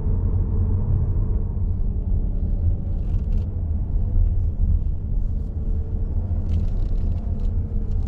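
Car being driven, heard from inside the cabin: a low, steady rumble of road and engine noise.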